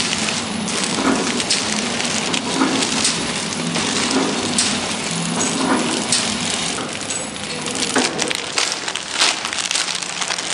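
Plastic packaging film crinkling and crackling in a continuous dense patter, over the low running sound of a pillow-type flow-wrap packing machine.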